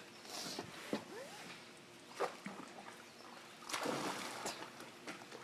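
A dog splashing through water after a thrown ball, with a louder splash about four seconds in.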